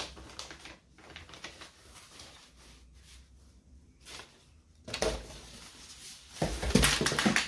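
Plastic packaging crinkling and rustling as items are handled, with a louder scraping burst about five seconds in and a longer, louder one near the end as an item is lifted out of its box.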